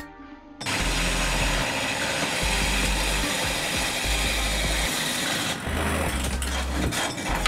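Core drill running steadily with a grinding noise, starting abruptly about half a second in, over background music with a regular bass beat.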